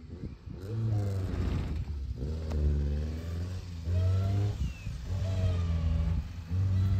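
Fiat Uno's engine revving hard in about five separate surges, each rising and falling in pitch, as the car drives through loose sand.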